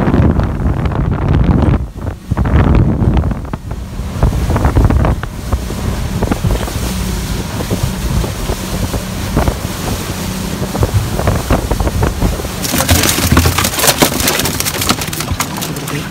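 Wind buffeting the microphone over the steady hum of a motorboat running across choppy water, gustiest in the first few seconds. About three-quarters of the way in the sound changes abruptly to a hissing, crackling noise full of small clicks.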